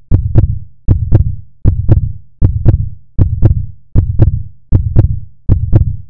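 Outro sound effect of low, heartbeat-like double thumps, a lub-dub pair repeating evenly about every three-quarters of a second and fading after each beat.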